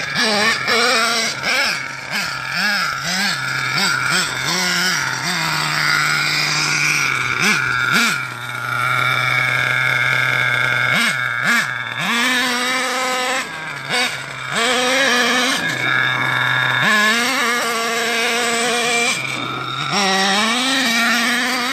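Small two-stroke engine of an HPI Savage XL RC monster truck revving up and down as the truck drives about. Its pitch rises and falls again and again and holds steady at high revs for a few seconds at a time.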